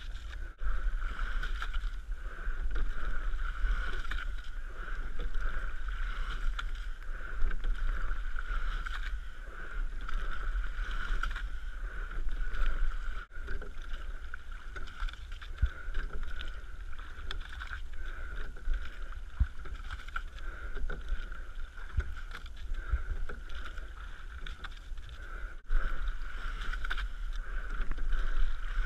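Rowing double scull under way: water rushing along the hull and the oars working through the water, rising and falling stroke by stroke, over a low rumble of wind on the boat-mounted microphone. The sound drops out briefly twice.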